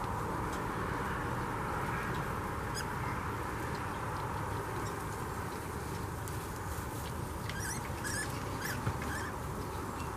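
Young mini piglets giving short, high squeaks, a cluster of them from about seven to nine seconds in, over a steady background hiss.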